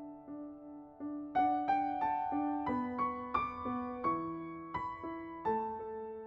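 Soft background piano music: a gentle melody of single sustained notes over a repeating accompaniment.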